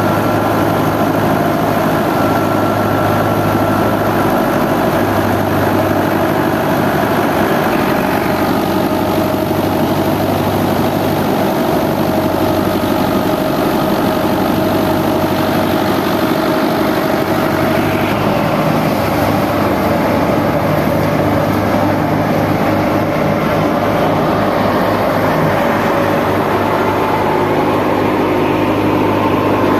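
Fiat tractor's diesel engine running steadily under load, driving a wheat thresher through its power take-off, with the thresher running along with it in one constant mechanical din.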